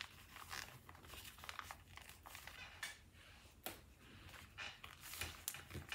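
Faint rustling and crinkling of a paper sewing pattern being handled and pinned down onto fabric, with scattered light ticks and taps.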